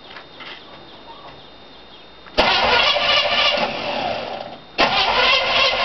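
Exhaust of a 1976 Chevy K5 Blazer's 350 small-block V8, faint at first, then suddenly loud about two and a half seconds in as the engine fires and runs, sagging briefly and picking up sharply again just before the five-second mark. The engine is loading up from a sticky choke that floods it.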